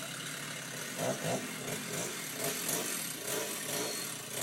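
Chainsaw cutting through a maple trunk, its pitch rising and falling in repeated strokes as it works the cut.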